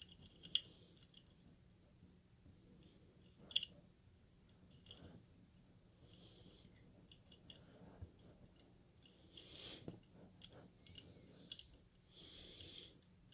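Faint metallic clicks and scrapes of picking tools working inside a five-lever lock as the levers are lifted in search of the binding one. Scattered sharp clicks, the loudest about half a second and three and a half seconds in, with soft scraping stretches between.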